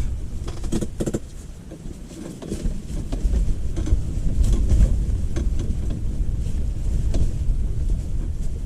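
Wind buffeting the microphone as a low, gusting rumble, with a few sharp clicks about a second in.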